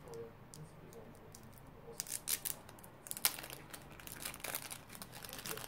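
Foil-lined wrapper of a duplo Winter Almond chocolate bar being peeled open by hand, crinkling and tearing in quick crackly bursts that start about two seconds in.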